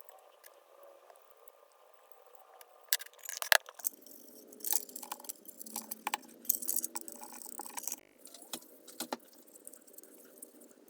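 Small clicks and knocks of hard parts being handled, with bursts of scratchy rubbing and scrubbing, typical of cleaning work on a small instrument. The loudest clicks come a few seconds in, and it goes quieter near the end.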